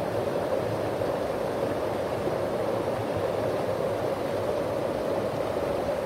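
Mountain stream running over rocks and small rapids: a steady, unbroken rush of water.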